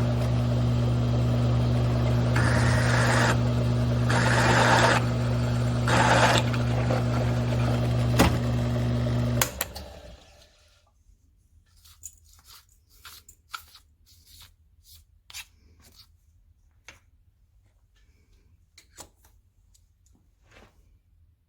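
Grizzly G1007 mill-drill running with a steady motor hum while a drill bit cuts into metal plate, the cutting noise swelling and fading in surges. About nine and a half seconds in the machine stops abruptly, followed by scattered light clicks and taps.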